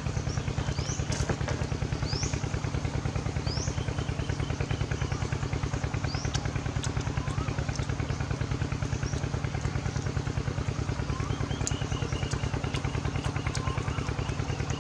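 A small engine running steadily with a fast, even, low throb that never changes. Short rising bird chirps sound over it, mostly in the first few seconds, with a few lower ones near the end.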